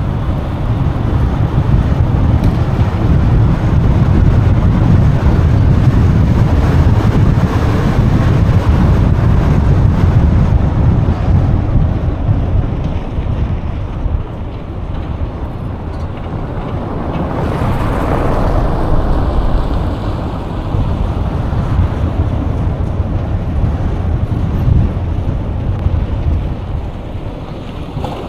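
Steady low rumbling road and wind noise from traffic, with a swell about two-thirds of the way through.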